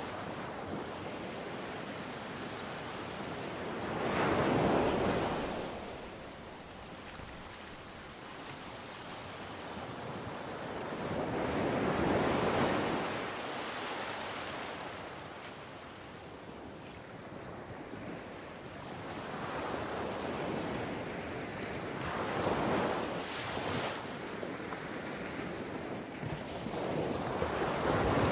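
Ocean waves breaking on the shore: a steady wash that swells into a loud surge about every seven or eight seconds, four times, and ebbs away between breakers.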